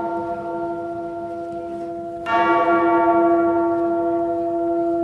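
A large bell tolling: the ringing of one stroke slowly dies away, and a second stroke rings out about two seconds in, with a long, slowly fading hum of several steady tones.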